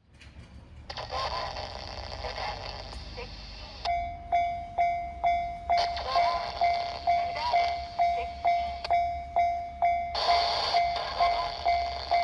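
Japanese railway level-crossing warning bell starting about four seconds in, ringing evenly about twice a second with each ding decaying. Before it there is a steady rush of noise, and a second brief rush comes near the end.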